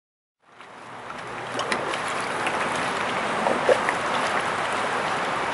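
Water lapping and trickling close to the microphone, with scattered small splashes and drips, fading up from silence about half a second in and then holding steady.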